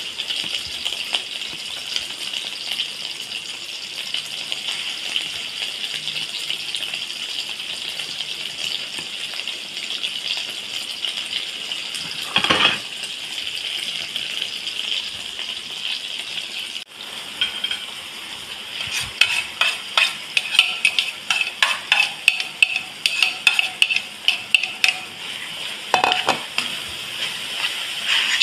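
Meatballs sizzling in hot oil in a stainless steel wok, a steady frying hiss with a single knock about halfway through. In the second half, a metal spatula clicks and scrapes against the wok about three times a second as it breaks up and stirs the frying meat, over the continuing sizzle.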